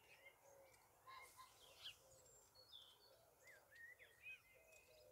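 Near silence with faint birdsong: several small birds chirping and calling, in short, scattered calls.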